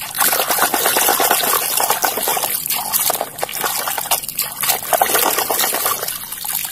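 Shallow water splashing and sloshing as a hand swishes plastic toy cars back and forth through it, washing off the mud. The splashing is continuous, with a couple of brief lulls.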